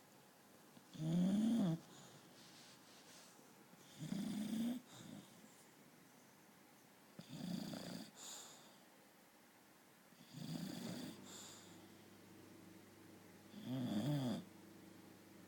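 British bulldog snoring in its sleep: five snores about three seconds apart, each lasting about a second, with quiet between them.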